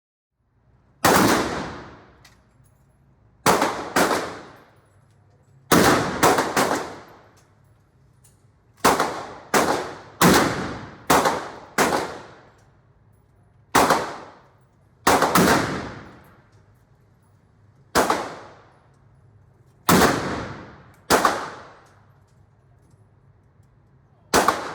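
Gunshots from a firearm, about eighteen single shots fired at an uneven, semi-automatic pace, some in quick pairs and triples, each followed by a short ringing decay.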